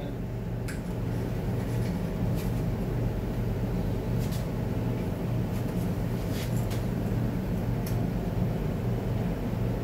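A steady low machine hum, with a few faint, sharp clicks of metal transmission parts being handled.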